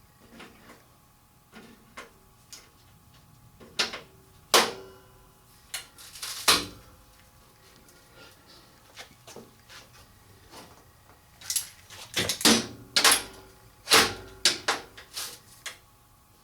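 Irregular knocks and clanks of metal parts and tools being handled on a workbench: a few light ones at first, several loud ones around a third of the way in, then a dense run of them near the end.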